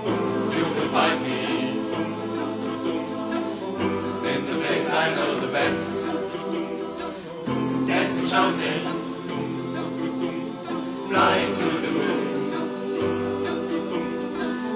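Large pub choir singing live in chords, the harmony shifting every couple of seconds.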